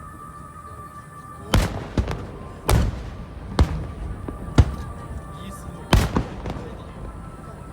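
Aerial firework shells bursting: a string of sharp booms, about seven, coming at irregular intervals after a quiet first second and a half.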